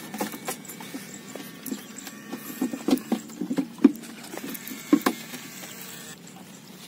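An angler's handling and movement noises: irregular light knocks, clicks and rustles as a bamboo fishing pole is handled and sandalled feet shift on a grassy, stony bank. The sharpest knocks come a little before four seconds in and around five seconds in.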